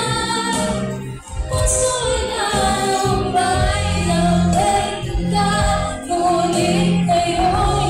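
Background music: a song with a sung melody over instrumental backing and a steady bass line.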